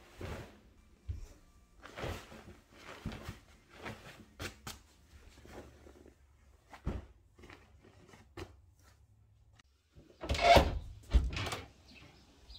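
Bedding being shaken out and smoothed over a bed: a string of soft fabric rustles and light knocks. After a short pause near the end, a door's lock and handle clicking and the door opening, the loudest sounds.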